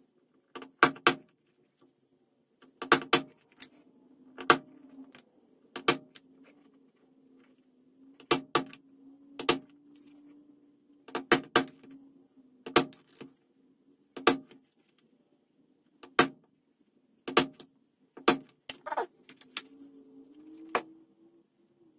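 A mallet striking a leather hole punch through vegetable-tanned leather: sharp knocks about every second or two, often in quick pairs, around twenty in all.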